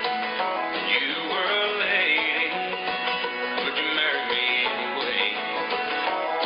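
Music led by plucked string instruments in a country or bluegrass style, playing continuously.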